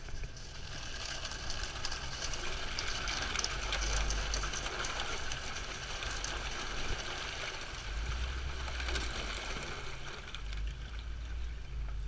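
Creek water splashing and rushing as a Jeep Wrangler's tyres plough through a shallow crossing, over a steady low rumble. The splash hiss builds about half a second in and fades out near the end as the Jeep leaves the water.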